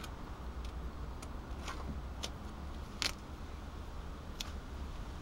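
Light hand-handling of silver duct tape: a few soft, short clicks and crinkles, the clearest about three seconds in, over a low steady rumble.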